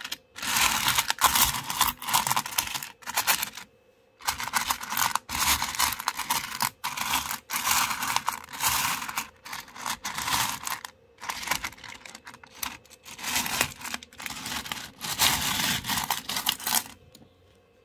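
Rough opal pieces, potch and colour, clattering and scraping against each other as fingers stir through the pile. The sound comes in runs of a few seconds with short pauses, and stops near the end.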